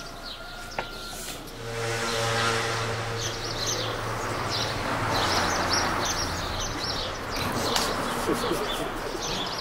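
A motor vehicle passes by: a steady engine hum comes up about one and a half seconds in and gives way to a rush of noise, while small birds chirp.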